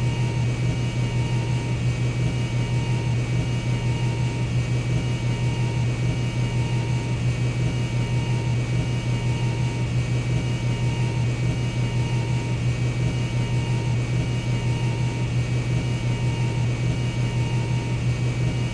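Jet aircraft cabin in cruise: a steady low engine drone under a constant rush of airflow. Two thin steady high tones run through it, with a fainter tone pulsing on and off a little more than once a second.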